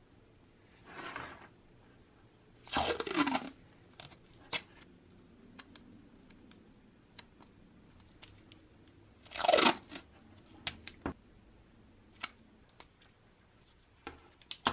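Handling noise from gloved hands working with a small level vial, paper towel and a roll of masking tape on a wooden bench: two short scraping, rustling sounds, about three seconds in and again near ten seconds, each sliding down in pitch, with scattered light clicks and taps between.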